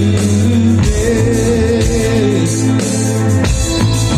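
Live rock band performing: a male singer holding a long, wavering sung note over electric guitars, bass and drums.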